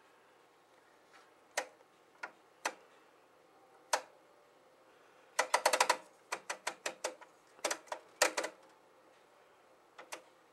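Tektronix 434 storage oscilloscope's time/division rotary switch clicking through its detents as it is turned. A few single clicks come first, then quick runs of several clicks from about halfway through.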